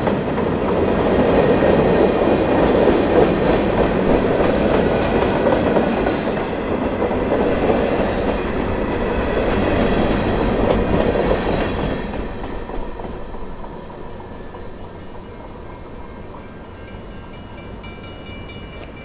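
Freight cars of a passing freight train, an autorack and then a covered hopper, rolling by with steel wheels on the rails. The sound falls away about two-thirds of the way through as the end of the train passes.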